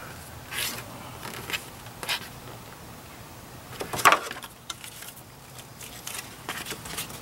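Thin cardboard template being handled and pushed in and out of a bumper opening: scattered brief rustles and scrapes, the loudest about four seconds in and a quick cluster near the end.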